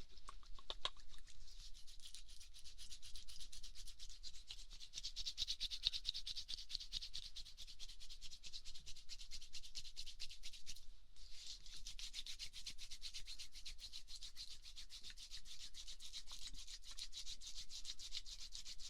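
A pair of hands rubbed briskly together to warm them, a fast continuous dry swishing with a short pause about eleven seconds in.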